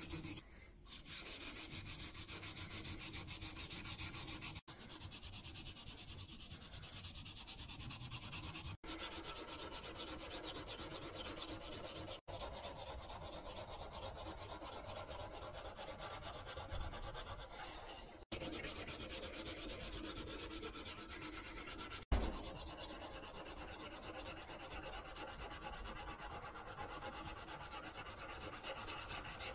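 Steel back of a 3/8-inch Marples chisel rubbed rapidly back and forth on a 400-grit diamond plate: a steady scratchy rasp of many quick strokes as the back is lapped flat and its high spots ground away. The rubbing stops for an instant five times.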